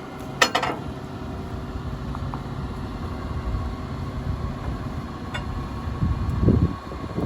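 Tractor engine running steadily beside a jammed drum wood chipper, with a sharp metallic clank about half a second in and a brief louder rumble near the end.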